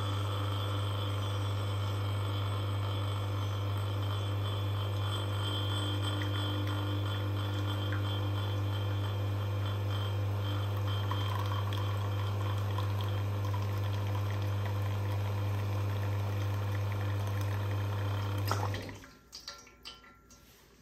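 Espresso machine pump running steadily with a loud, even hum while a shot is pulled, cutting off abruptly near the end as the shot is stopped, followed by a few light clicks.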